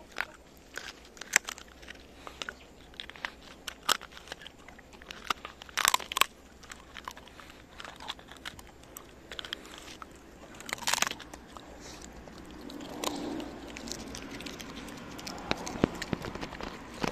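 Shiba Inu gnawing and crunching a boiled chicken carcass, bones cracking in irregular snaps, a few loud ones about six and eleven seconds in.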